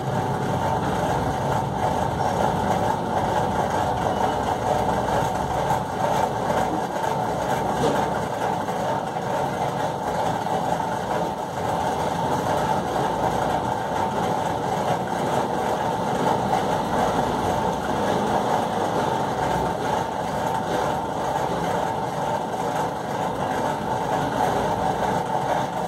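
Steady, unbroken mechanical running noise, like a motor or fan, holding an even level throughout.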